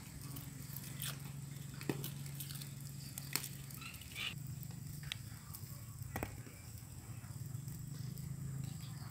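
Garlic cloves dropped one at a time into a stone mortar, giving a few light, sharp clicks over a steady low hum.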